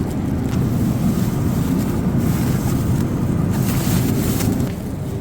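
Steady low rumble and rush of a car in motion, road and wind noise, with a brighter hiss swelling up about three and a half seconds in.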